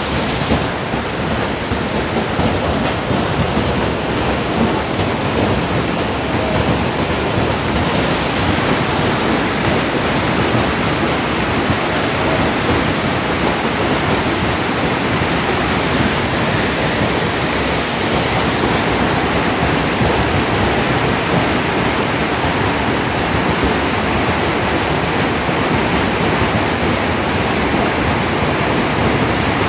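Hailstorm: hail and heavy rain coming down in a dense, steady hiss that does not let up.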